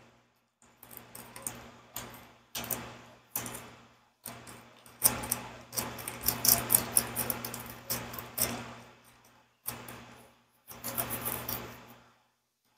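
Gloved hands working food in a plastic bowl: irregular crinkling and rustling with small clicks and taps, busiest in the middle, over a faint steady hum.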